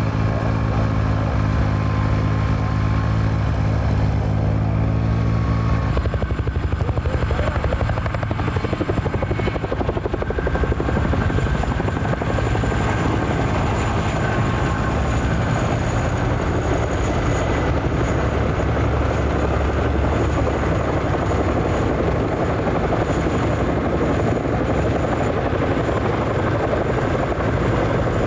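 Engine running steadily with a low humming tone, turning about six seconds in to a rougher, rapidly fluttering sound that holds steady.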